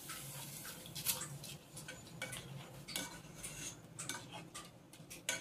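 A black plastic spoon stirring vermicelli into milk in a non-stick pan, scraping and knocking lightly against the pan at irregular intervals.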